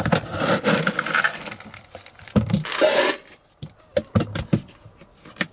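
Dry dog kibble scooped out of a plastic storage bin and poured into a stainless steel bowl: rattling and clicking, a few knocks, and a brief hissing rush of pouring about three seconds in, then scattered light clicks.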